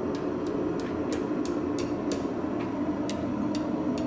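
Light, quick hand-hammer taps on a red-hot half-inch steel bar against the anvil, about three or four a second, as its tapered end is rolled into a scroll. A steady hum runs underneath.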